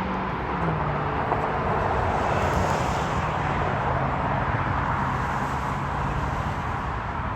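Jet airliner engines roaring steadily, swelling with a hissing edge about two to three seconds in and then easing slightly.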